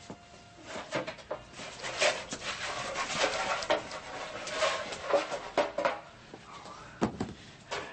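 Studio audience laughter swelling for several seconds and then dying down, with a few sharp clicks through it.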